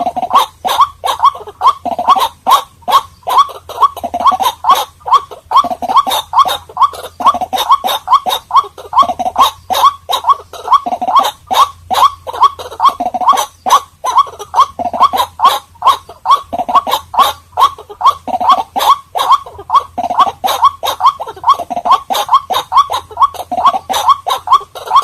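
White-breasted waterhen calling: a rapid, unbroken string of short, loud notes, about three a second, over a faint low hum.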